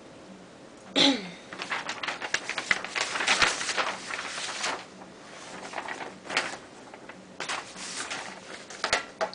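Sheets of paper rustling and crackling as they are handled and shuffled, in irregular bursts. About a second in there is a short falling vocal sound.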